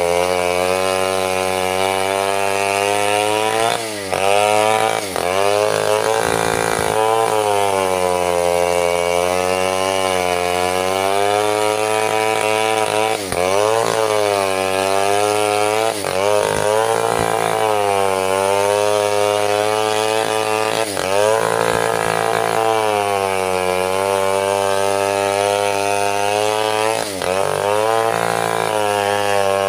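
Stihl chainsaw ripping lengthwise through a mahogany log, running at high revs under load. Its pitch dips briefly and recovers several times.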